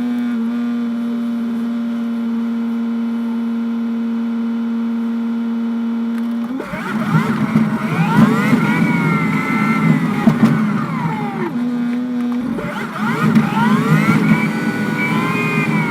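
School bus engine idling steadily, then pulling away about six seconds in, its pitch rising and falling repeatedly; it settles back to idle briefly near twelve seconds and then pulls away again.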